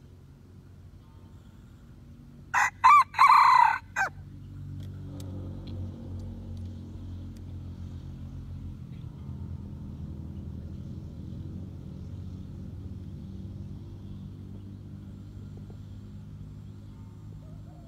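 A white-eared red junglefowl rooster crows once, about two and a half seconds in: a short, clipped crow in a few quick parts lasting about a second and a half. After it a low steady rumble carries on.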